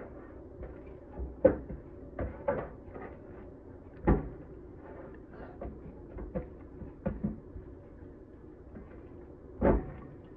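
Irregular knocks and clunks of a round metal baking pan, with a spoon lying in it, as raw chicken leg quarters are pressed and turned over in it. There are about a dozen, with sharper ones about a second and a half in and about four seconds in, and the loudest near the end.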